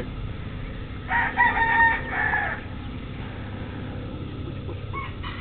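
A rooster crowing once, about a second in: a single call lasting about a second and a half.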